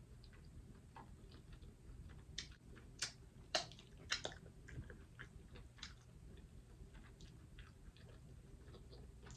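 Faint close-miked eating: chewing with wet mouth clicks and smacks, a cluster of sharper, louder clicks between about two and four seconds in.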